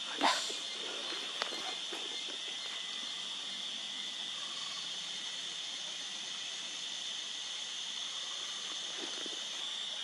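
Steady high-pitched drone of rainforest insects, unbroken throughout, with one short sharp sound about a quarter-second in and a fainter click about a second later.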